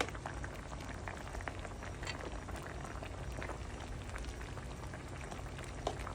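Cucumber-lime broth simmering in a pan: a steady bubbling with many small pops, and a single light click near the end.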